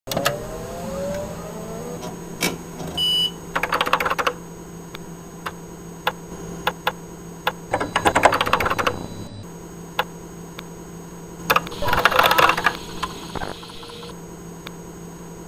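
Keyboard typing clicks, in three bursts of rapid keystrokes with scattered single clicks between, matching text being typed out on screen, over a steady low electronic hum. A short high beep sounds about three seconds in.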